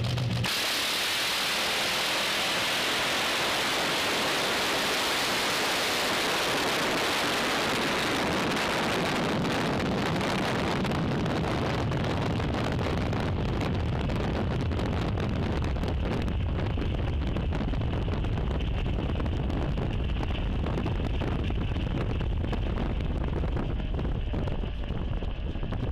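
Drag racing car at full throttle, a loud harsh noise that overloads the microphone, starting suddenly about half a second in and giving way after about eight seconds to a lower rumble.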